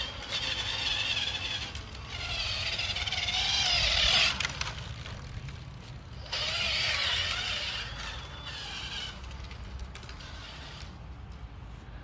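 Child's electric balance bike motor whining, its pitch wavering up and down with the throttle. It runs in two stretches, the first ending about four seconds in and the second lasting from about six to nine seconds, over a steady low rumble.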